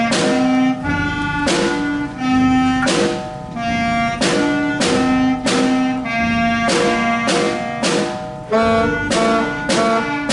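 Beginner school band of fourth and fifth graders playing wind, brass and percussion in short, sharply attacked notes in a steady, repeating rhythm, with the sections playing three different rhythms against each other.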